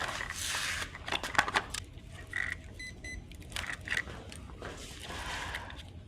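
Rustling and scattered sharp clicks of handling, with a few short, high electronic beeps around the middle.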